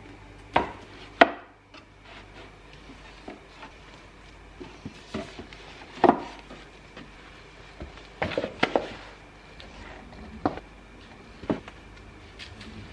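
Irregular sharp knocks and clatters of hard objects being handled and set down, a few spread out and a quick cluster around eight seconds in.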